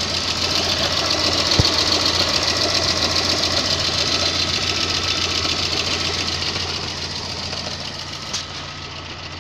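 VAZ-2110 engine running fully warmed up, with a fast, even knocking over the running sound that grows louder for a few seconds and then eases off. A sharp click stands out about one and a half seconds in. The knock shows up only once the engine is warm, and its cause is unknown.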